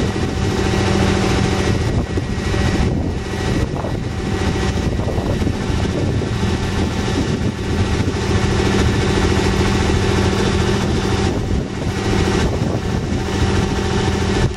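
An engine idling steadily, with a faint steady whine above its note.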